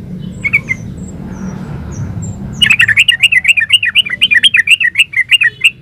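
Yellow-vented bulbul (trucukan) singing. A couple of short notes open, then a loud, fast, chattering run of rapid notes, about six or seven a second, over a low background rumble.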